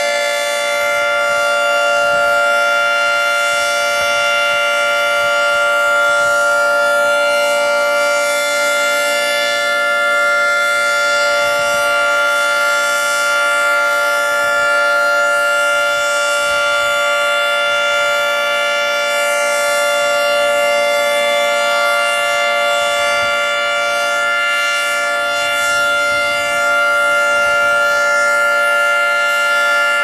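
Federal Signal 3T22A three-tone rotating siren sounding a steady chord at full speed, its pitch holding level. The loudness swells and eases slightly every few seconds as the horns turn.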